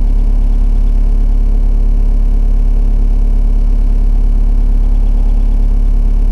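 Excavator's diesel engine running steadily, a constant low drone without changes in speed.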